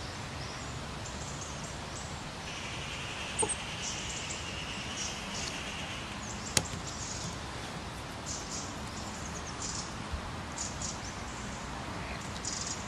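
Garden ambience: a steady background hiss with short high chirps scattered through it, a longer high-pitched note from about two to six seconds in, and two faint clicks.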